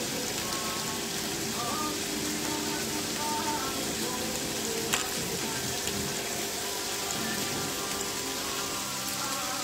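Linguine cooking in tomato stock in a pan, giving a steady sizzling hiss, with a couple of faint clicks near the middle.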